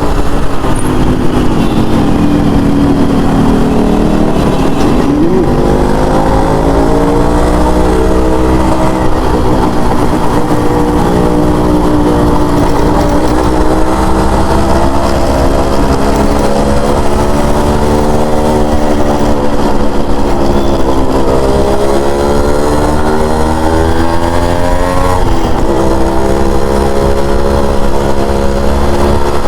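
Yamaha RX100's two-stroke single-cylinder engine and exhaust on the move, the pitch climbing and falling as the throttle is worked. About five seconds in and again near twenty-five seconds the pitch drops sharply and climbs again.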